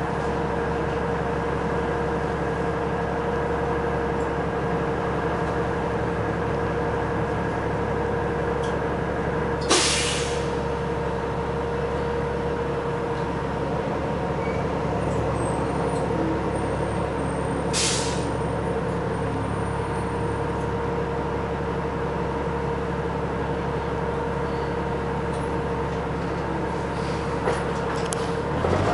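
Cabin sound of a 1997 Neoplan AN440 CNG transit bus under way: a steady engine and drivetrain hum with a constant whine. Twice, about ten and eighteen seconds in, a short hiss of air comes from the bus's air system.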